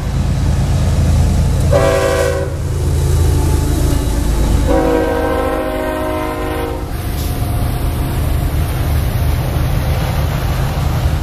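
Diesel locomotive air horn sounding a short blast about two seconds in, then a longer blast of about two seconds, over the train's steady low rumble.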